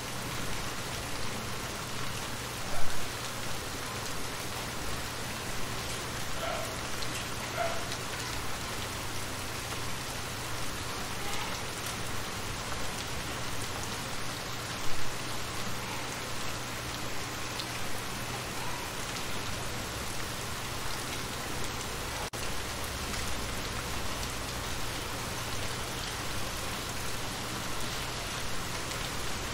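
Steady rain falling onto shallow water, an even patter with single drops plinking on the surface. Two brief louder hits stand out, about 3 and 15 seconds in.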